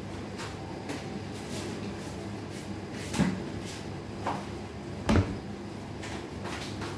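Scattered knocks and clatter of kitchen handling, with two louder thumps, one about three seconds in and the loudest about five seconds in, as the empty plastic cutting board is set back down on the table.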